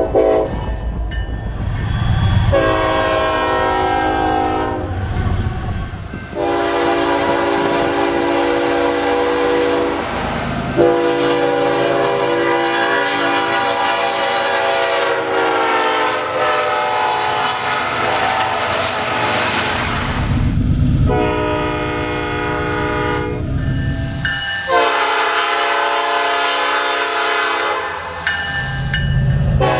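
A series of long blasts from Nathan Airchime multi-chime locomotive air horns, each sounding a chord of several notes. One long blast sags slightly in pitch partway through. A low rumble from the passing train fills the short gaps between blasts.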